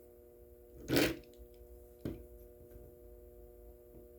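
Handling noise: a short soft knock about a second in and a sharper click about a second later, with a few faint ticks, over a steady low hum.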